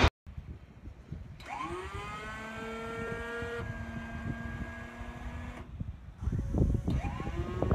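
Boeing 737-200 auxiliary power unit, a small gas turbine, starting up: a whine rises in pitch as it spools up, then settles to a steady tone over a low rumble. The sound breaks off, and a second rising spool-up whine with a louder rumble begins near the end.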